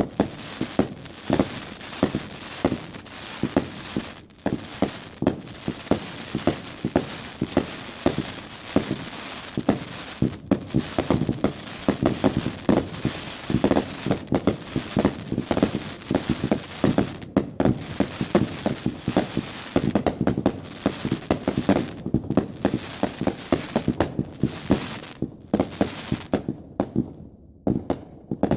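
Consumer aerial fireworks going off in rapid succession: a dense run of bangs several times a second over steady crackling. The firing thins out briefly near the end.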